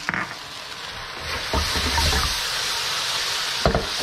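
Beef and broccoli sizzling in a wok over high heat as the sauce thickens with cornstarch slurry, getting louder about a second in when a wooden spatula starts stirring, with a couple of scrapes of the spatula against the wok.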